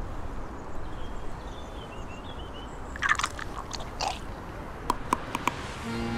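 Outdoor ambience with a steady low wind rumble and faint bird chirps. Then come two brief rough rustling noises, and about five seconds in a quick run of four sharp clicks.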